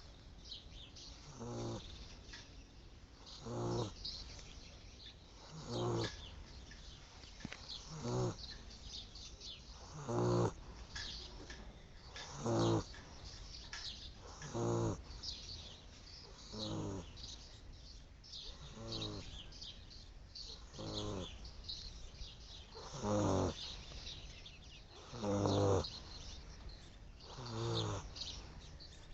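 A small dog snoring in its sleep, one short rattling snore roughly every two seconds, in a steady rhythm.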